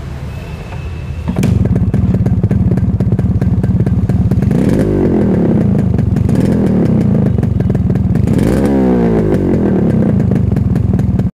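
Motorcycle engine running loud and fast, coming in hard about a second in and revved up twice, around the middle and near the end.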